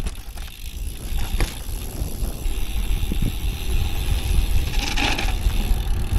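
Wind rushing over the microphone with tyre rumble from a road bike descending, growing louder as speed builds. A few light clicks, and a brief hiss about five seconds in.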